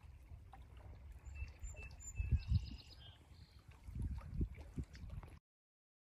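Small lake waves lapping and knocking against shoreline rocks, with a few short, high bird calls in the middle. The sound cuts off suddenly near the end.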